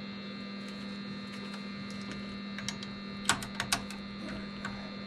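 Steady electrical hum, with a quick cluster of sharp clicks a little over three seconds in.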